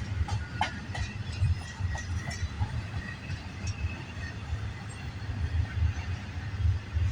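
Intermodal freight train cars rolling past: a steady pulsing rumble with wheels clacking over the rail joints, and a few sharp clicks and squeaks in the first couple of seconds.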